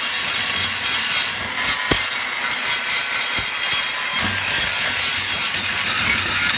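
Angle grinder with an abrasive disc grinding down weld beads on thin steel plate: a steady, harsh grinding hiss, with a couple of brief clicks about two seconds and three and a half seconds in.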